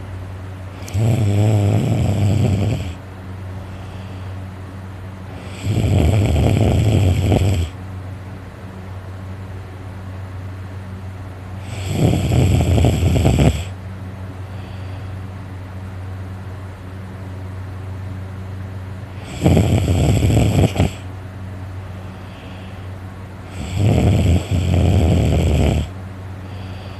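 A sleeping person snoring loudly: five long snores, each lasting a second and a half to two seconds, coming roughly every five to six seconds over a steady low hum.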